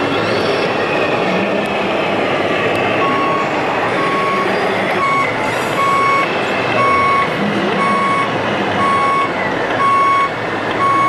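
Reversing beeper on a radio-controlled model truck's sound module, starting about three seconds in and beeping about once a second over steady background noise.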